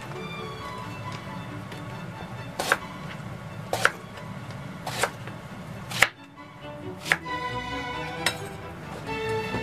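Kitchen knife cutting through eggplant and knocking on a cutting board, about six sharp chops roughly a second apart, over background music.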